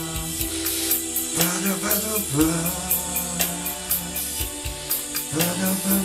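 Pop karaoke backing track playing an instrumental passage: held chords over a bass line and a steady drum beat with regular hi-hat ticks.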